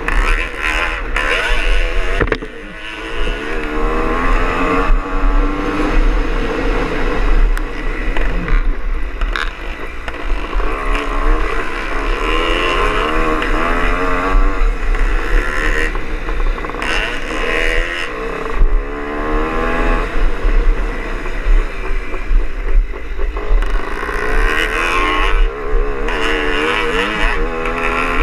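Greeves Hawkstone two-stroke single-cylinder scrambler engine under way, revving up and down as the throttle is opened and shut, with a brief shut-off about two and a half seconds in. A steady low rumble of wind on the bike-mounted microphone runs underneath.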